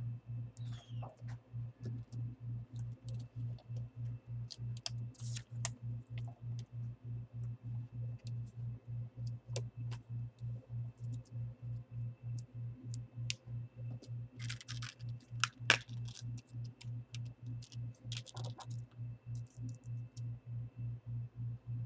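Light clicks and taps from plastic laptop display parts being handled, with two short stretches of crinkling plastic wrap and one sharper snap about two-thirds of the way in. Under it all is a steady low hum that pulses about four times a second.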